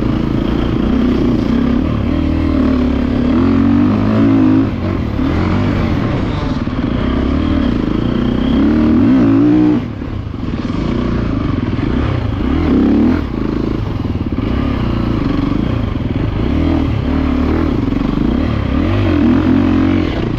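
GasGas EC350F four-stroke single-cylinder enduro motorcycle engine under load, its revs rising and falling with the throttle as it is ridden over a dirt track. The revs drop sharply for a moment about ten seconds in, then pick up again.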